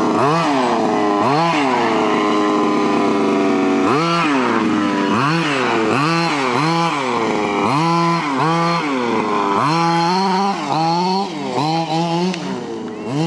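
HPI Baja 5SC RC truck's small two-stroke petrol engine revving up and down as the truck is driven, dropping in pitch for about two seconds early on, then blipped up and down about twice a second.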